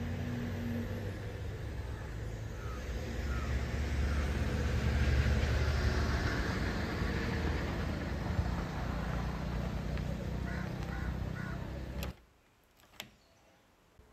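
Outdoor ambience: a steady low rumbling noise that swells in the middle, with a few crow caws. It cuts off abruptly near the end, followed by a single click.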